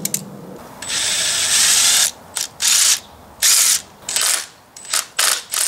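Hand ratchet clicking while backing bolts out of the rear crankshaft seal cover on a Mercedes M117 V8 block. A run of fast ratcheting lasts about a second, then comes a string of short ratchet strokes about half a second apart.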